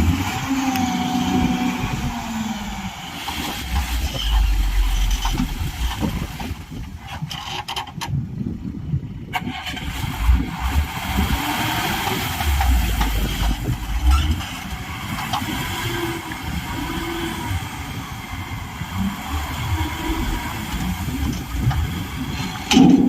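Heavy diesel engines of a backhoe loader and trucks running at a worksite. The engine note swells into deeper rumbling surges a few seconds in and again near the middle.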